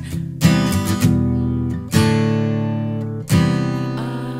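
Acoustic guitar strumming chords between vocal lines. Four strokes, each left to ring and fade before the next.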